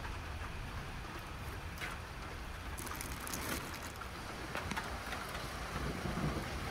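Faint crinkling of a thin plastic bag liner as hands open out the mouth of a sheepskin cheese sack, over a steady low rumble.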